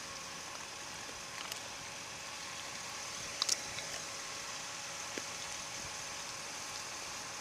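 Steady background hiss with a faint hum under it, broken by a few light clicks; the sharpest is a quick double click about three and a half seconds in.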